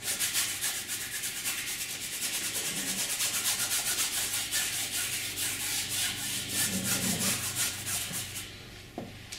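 Paintbrush scrubbing paint onto canvas in quick back-and-forth strokes: a dry, rasping rub about four or five times a second that stops about a second before the end.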